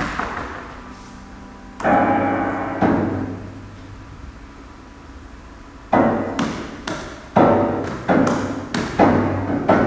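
Grand piano played percussively in free improvisation: a heavy struck chord about two seconds in and another a second later, each ringing out, then from about six seconds in a run of hard, quick strokes, two or three a second, with a dull low thud under each.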